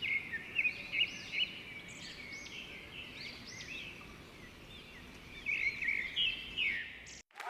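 Songbirds chirping and singing: many short, high chirps and looping notes, cut off abruptly near the end.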